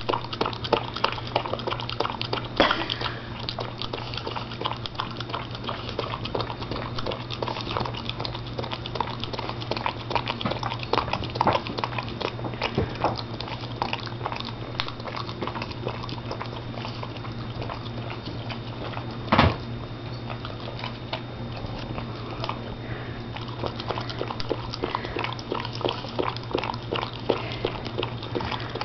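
Boston Terrier licking and smacking its lips, a run of short wet clicking mouth sounds, with one louder click about two-thirds of the way through.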